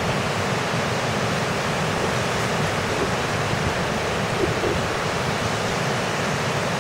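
Rough, wind-driven sea surf breaking over rocks and shallows: a steady, even rush of waves in strong wind.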